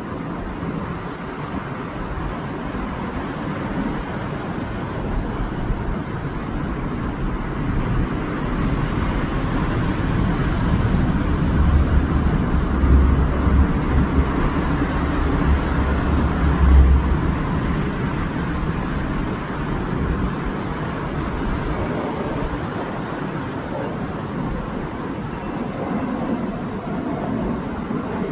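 Steady outdoor city rumble of passing vehicles, with a heavier low rumble building about twelve seconds in and easing off after about seventeen seconds.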